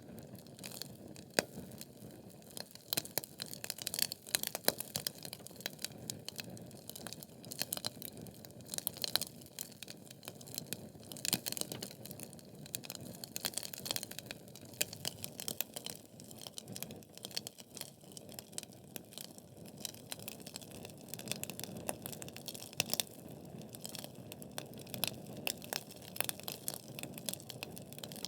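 Wood fire burning in a fireplace: logs crackling with many sharp pops and snaps, some in quick clusters, over a steady low hiss of the flames.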